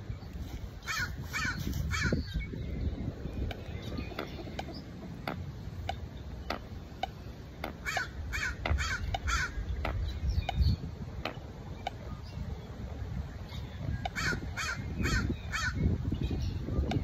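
Crows cawing in three runs of four or five caws each, about a second in, around eight seconds in, and near the end, over steady wind rumble on the microphone.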